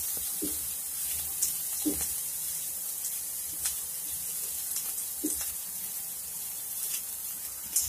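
Chopped carrot, onion, garlic and ginger sizzling steadily in oil in a wok as they are lightly sautéed, with a spatula scraping and knocking against the pan several times as the vegetables are stirred.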